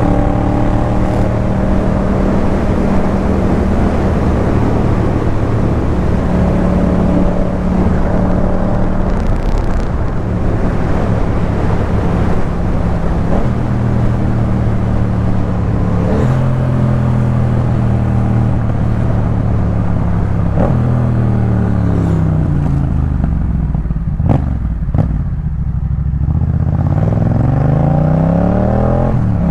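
2018 Yamaha MT-07's 689 cc parallel-twin engine through a Jeskap K4 full exhaust system, riding at mostly steady revs. About two-thirds through, the revs fall away for several seconds, then climb again near the end.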